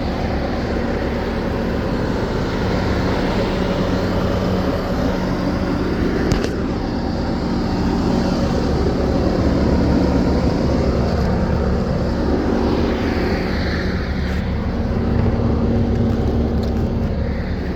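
Bobcat T770 skid steer's four-cylinder diesel engine running steadily, swelling a little in the middle and near the end.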